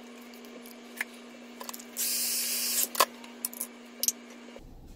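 A short spray hiss of just under a second, about two seconds in, among a few sharp clicks and taps, over a faint steady hum.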